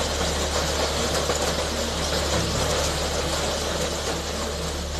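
Hail falling hard, a steady, dense hiss and patter of hailstones striking the ground and a tile roof, with a low steady rumble underneath.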